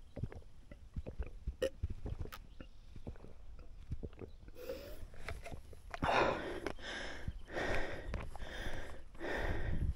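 A hiker's footsteps scuffing and clicking on rock and gravel for the first few seconds. Then heavy breathing takes over, about one breath a second, from about five seconds in.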